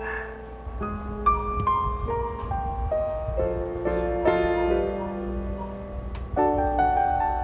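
Background music: piano playing slow, held chords.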